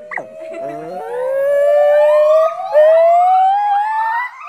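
White-cheeked gibbon calling loudly: a few softer rising notes, then two long notes that each climb steadily in pitch, the second climbing higher.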